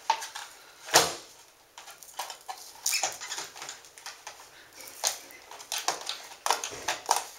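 Irregular clicks and knocks of a Tennant V-SMU-14 commercial upright vacuum's brush roll being worked back into its housing against a tight new drive belt, with the loudest knock about a second in.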